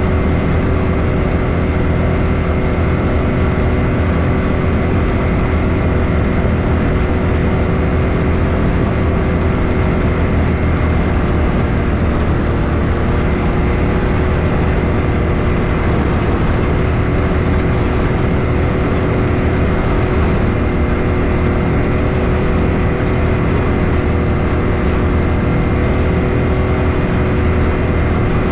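Side-by-side UTV engine and drivetrain running at a steady cruise, with a steady whine over a low rumble.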